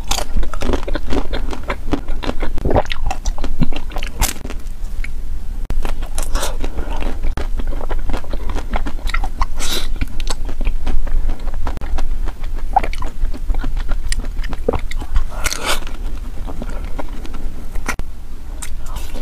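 Close-miked biting and chewing of a coated ice cream bar: irregular crunching bites into its hard shell, with chewing between.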